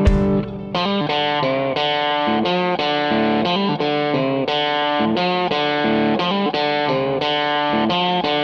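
Background music led by a distorted electric guitar, sustained notes and chords changing several times a second.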